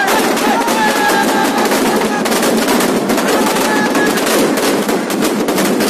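Firecrackers packed inside a burning Ravana effigy going off in a rapid, continuous string of loud bangs, like machine-gun fire.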